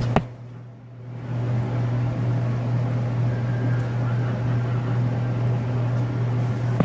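A steady low hum, with a single sharp click just after the start.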